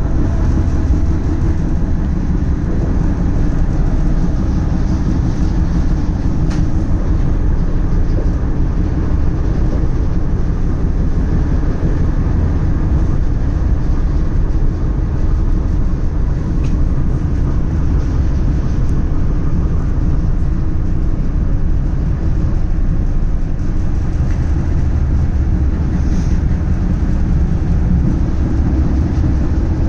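Steady low rumble of a moving tram running along the track.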